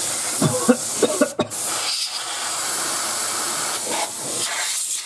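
Can of compressed air spraying in long blasts to blow dust out of a desktop PC case: a steady hiss that breaks off briefly about a second and a half in.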